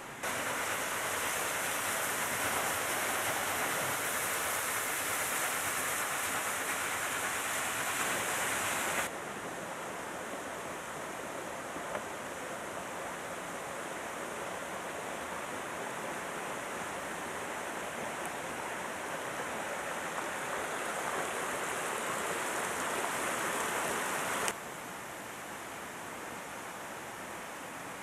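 Steady rushing of a mountain stream. It drops suddenly in level about nine seconds in, swells again, then drops suddenly once more a few seconds before the end.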